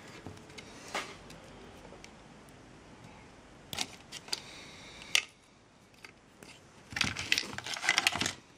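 Handling sounds of small plastic and metal parts at a workbench: scattered clicks, one sharp click about five seconds in, and a quick run of clicking and rattling near the end.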